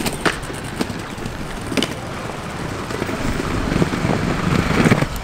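Aggressive inline skate wheels rolling over concrete, with a few sharp clacks. The rolling rumble grows louder over the last second or two.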